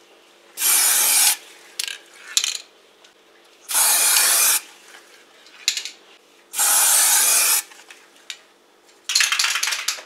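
Aerosol can of black enamel spray paint hissing in three short bursts, each under a second long, as paint is sprayed onto the inside of a microwave oven cavity. Near the end a rapid clattering rattle starts.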